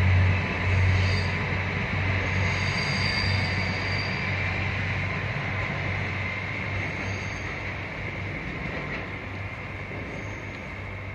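Diesel railcar train running past on the track, its engine hum and wheel noise steadily fading as it moves away, with faint high squeals from the wheels now and then.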